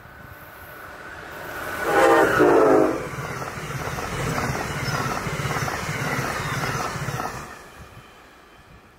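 Passing train sounding two short horn blasts about two seconds in, the loudest moment. After that come several seconds of wheel rumble with a regular clatter, which fades away near the end.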